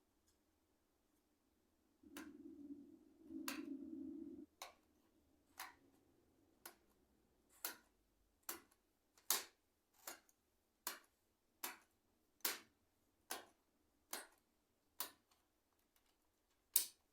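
Plastic keycaps being popped off a membrane keyboard one after another, each giving a sharp click, about one a second. A low rubbing noise comes before, from about two seconds in to about four and a half.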